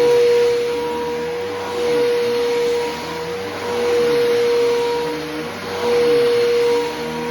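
Bissell Powerforce Helix Turbo upright vacuum cleaner running, a steady motor whine over airflow hiss, the sound swelling and easing about every two seconds as the cleaner is pushed back and forth over the floor.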